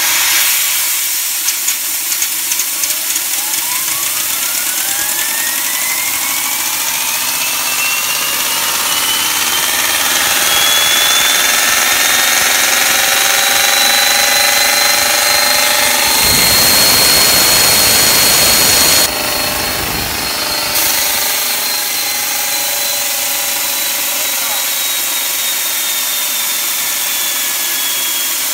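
A 1943 Mark 13 aerial torpedo's turbine motor running, its whine rising steadily over about ten seconds and then holding high over a loud steady hiss. The motor is running at only a fraction of its full speed. Past the middle a louder, deeper rushing noise comes in for a few seconds.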